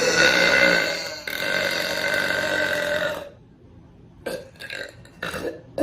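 A girl belching: one long drawn-out belch breaks off about a second in and runs straight into a second that holds a steady pitch for about two seconds. A few short, quieter sounds follow near the end.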